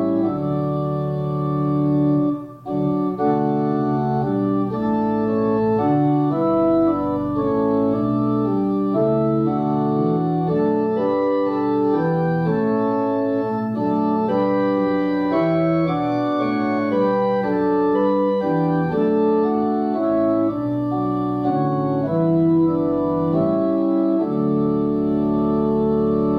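Organ playing a slow piece in sustained chords that change every half second or so, with a brief break about two and a half seconds in.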